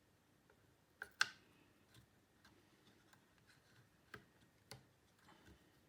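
Sparse small clicks and taps, the loudest about a second in: a SO-DIMM RAM module being handled and pressed into the Mac mini's memory slot.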